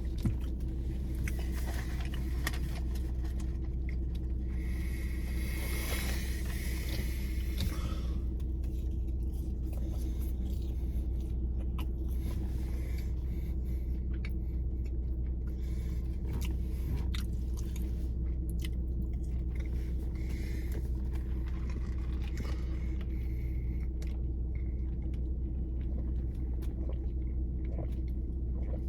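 Close-up chewing and biting of a Big Mac and fries over a steady low rumble. About five seconds in there is a rustle lasting a couple of seconds.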